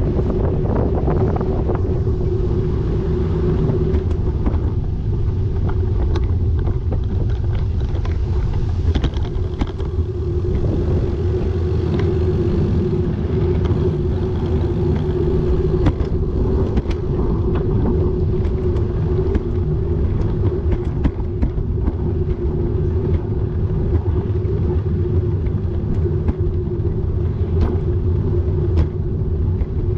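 Steady rumble of a bike riding along a street: a constant low hum with a steady mid tone, dotted with scattered small clicks and knocks.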